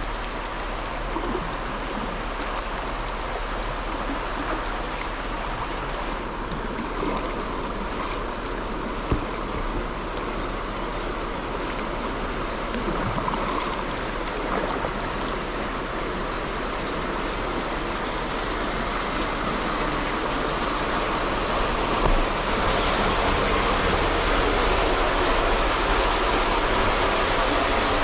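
Vistula river water flowing and rushing steadily, getting louder over the last several seconds.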